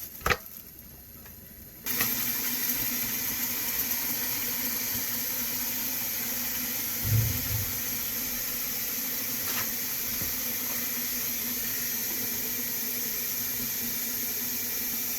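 A steady hiss with a constant low hum, switching on suddenly about two seconds in, as from a kitchen appliance at the stove where squid is boiling. A dull low thump about seven seconds in.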